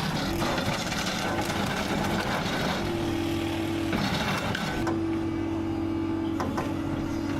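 A heavy machine's engine running steadily, with a held whine that comes and goes and a rougher, noisier sound that eases off about five seconds in.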